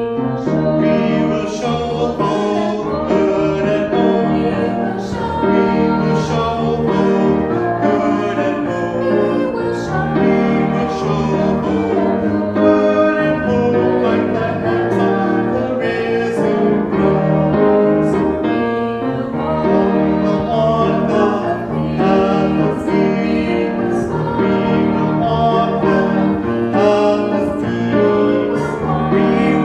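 A hymn with piano and singing voices.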